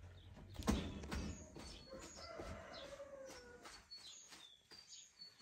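Rooster crowing once, a long call that falls slightly in pitch about two seconds in. Small birds chirp high throughout, and a sharp knock comes just under a second in.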